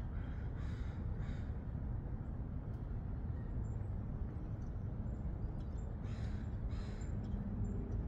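Crows cawing: three harsh caws in quick succession near the start and two more about six seconds in, over a steady low rumble of background noise.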